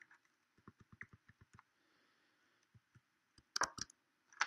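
Computer keyboard keystrokes: a quick run of about ten light key clicks, then a pause and two louder clicks shortly before the end.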